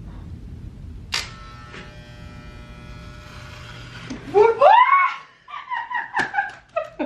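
Electric beard trimmer buzzing steadily while shaving off a sleeping man's beard, with a click about a second in; the buzz cuts off just under five seconds in. As it stops comes a loud voice cry that rises and falls, then several short, high-pitched voice sounds.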